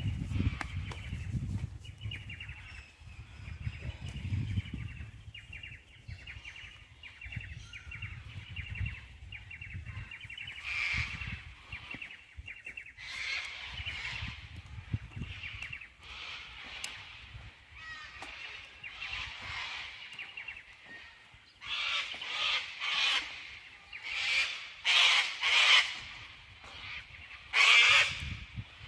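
Birds calling over and over with harsh, honking calls, which grow into a run of loud calls in the last third. A low rumble sits under the first few seconds.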